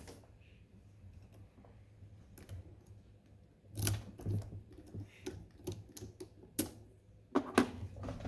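Small metallic clicks and ticks of lock picking tools working in an ASSA 6000 lock cylinder, coming irregularly several times a second from about four seconds in.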